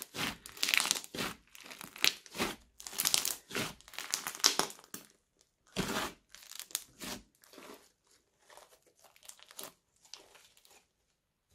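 Crunchy slime studded with small beads being squeezed and kneaded by hand, giving irregular bursts of crackling and crunching. The crackles grow sparser and fainter after about seven seconds and die away near the end as the slime is spread out flat.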